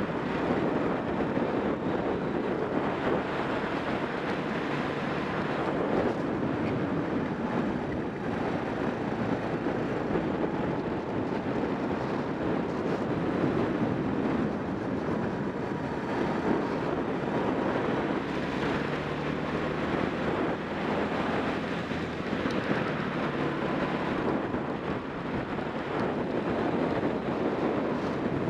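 Racing kart engine running hard, heard from an onboard camera, under heavy wind noise on the microphone. The engine note rises and falls a little as the kart goes through the corners.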